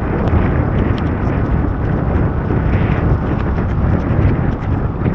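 Wind buffeting the microphone of a moving motorcycle in heavy rain: a steady, deep rushing noise with scattered sharp ticks of raindrops striking the camera.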